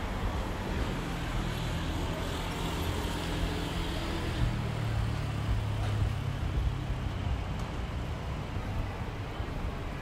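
Street traffic: a motor vehicle's engine running with a low hum that is strongest through the middle and fades near the end, over a steady wash of city noise.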